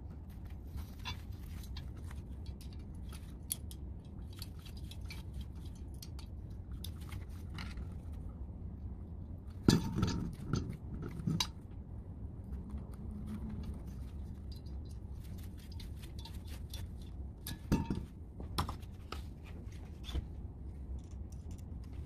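Lamp receptacle being fitted into its metal fixture bracket with a screwdriver: small clicks, taps and scrapes of plastic and metal parts being handled, with a louder clatter of knocks about ten seconds in and two more knocks near the end. A steady low hum sits underneath.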